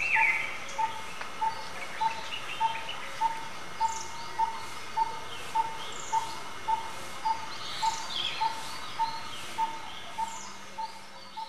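Birds calling outdoors: one bird repeats a single short low note at an even pace, under twice a second, while others chirp and give quick falling whistles. The sound fades out near the end.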